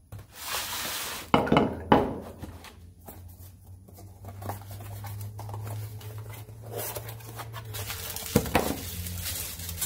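Unpacking sounds: a heavy metal gas regulator knocks twice on a wooden workbench as it is set down, about a second and a half in. Then cardboard is handled and rustled as a small parts box is pulled from the carton and opened.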